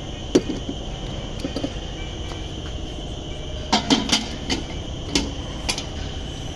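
Sharp knocks and clanks of metal as a car door and its sheet-metal body parts are worked into place: a single knock, then a quick cluster of several, then two more, over a steady high-pitched insect-like drone.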